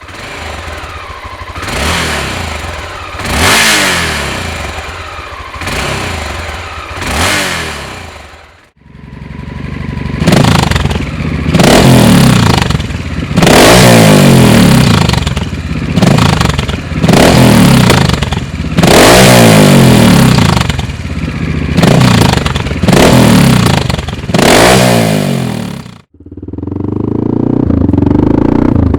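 Honda NX650 Dominator's single-cylinder four-stroke engine through an aftermarket Dominator silencer, revving and pulling hard, the pitch climbing in repeated sweeps and dropping sharply at each change, as when accelerating through the gears. The sound cuts off abruptly twice and picks up again, ending in a steadier, lower run.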